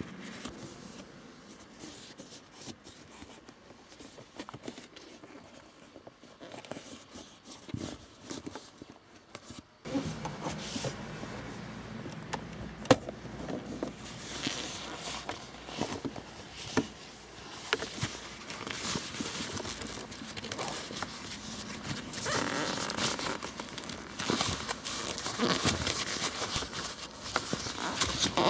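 Hands handling an old leather gear gaiter on an Opel Corsa C's gear lever: leather rustling and crinkling with scattered plastic clicks as the gaiter and its plastic frame are worked loose from the console. Faint for the first third, then louder and busier, with one sharp click near the middle.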